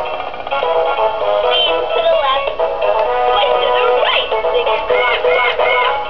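FurReal Friends Squawkers McCaw animatronic macaw toy singing a song through its built-in speaker: a synthesized voice over a musical backing, with sliding pitches and little bass.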